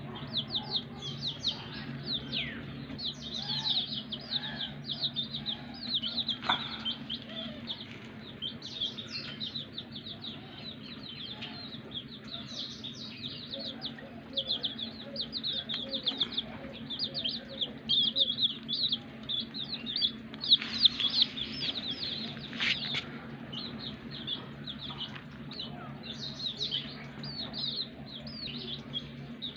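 Many newly hatched chicks peeping: a dense chorus of short, high chirps with no break, with a few louder calls about two-thirds of the way through. A steady low hum runs underneath.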